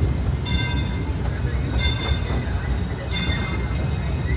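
Disneyland Railroad steam train under way, with a steady low rumble of wheels and cars on the track. Over it a high metallic ringing recurs about every second and a quarter.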